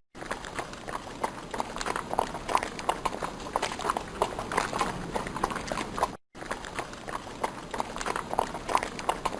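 Horse hooves clip-clopping on hard ground in a steady rhythm of strikes. The sound cuts out briefly twice, at the very start and about six seconds in.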